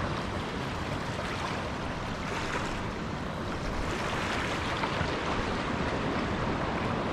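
Small waves washing and swirling over a reef rock ledge, with wind on the microphone. It is steady noise that swells a little around the middle.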